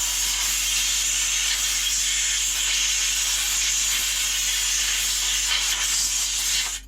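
Compressed air blowing in a loud, steady hiss, blowing dust off and drying out the inside of a variable frequency drive. It cuts off suddenly near the end.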